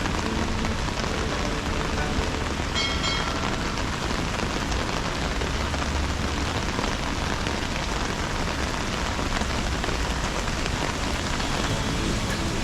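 Heavy rain falling steadily, a dense even hiss of drops on the river and the boat. A brief high-pitched tone sounds about three seconds in.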